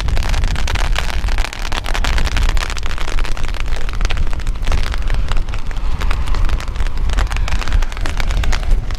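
Strong gusting wind buffeting the microphone in a heavy, uneven rumble, with wind-driven rain spattering in many quick sharp ticks.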